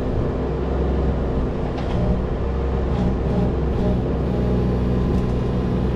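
Engine of a construction machine running steadily with a low rumble, at an even pitch throughout. No saw-cutting whine is present.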